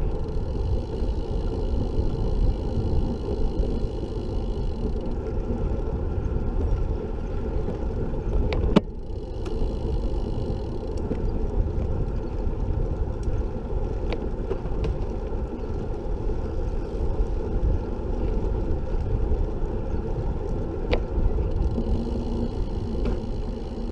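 Wind buffeting the handlebar camera's microphone, with tyre noise, as a recumbent trike rolls along a paved path. The rumble is steady, with one sharp knock about nine seconds in and a few faint ticks.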